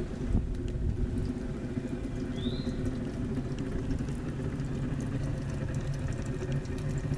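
Homemade waste-motor-oil heater, a brake-disc burner under an inverted flower pot, burning steadily: a low, continuous draft noise as the stove draws through its chimney. A short rising chirp comes about two and a half seconds in.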